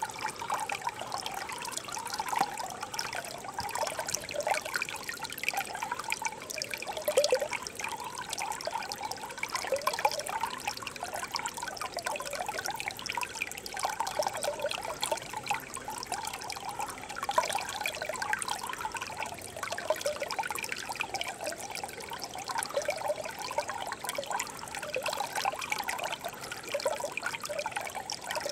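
Shallow stream of clear water babbling over rocks: a steady trickling, busy with many small bubbling notes.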